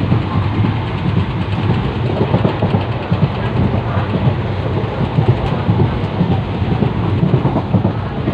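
Running noise of a moving passenger train heard from inside a sleeper coach: a steady low rumble with rattling from the wheels and carriage.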